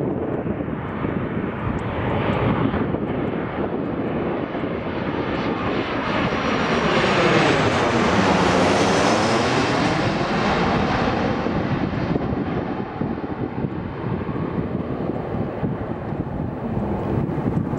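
Boeing 737-800 on final approach with gear down passing low overhead, its CFM56-7B turbofan engines and airframe making a steady jet roar. The noise swells to its loudest about halfway through as the jet crosses overhead, with a sweeping whoosh, then eases off as it heads away toward the runway.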